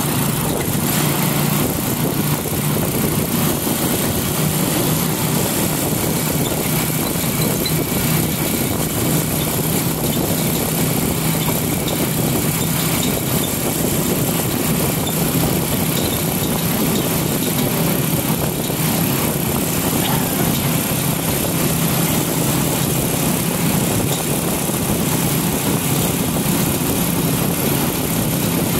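Motorcycle engine running steadily while riding along, a constant low drone under an even rush of wind and road noise.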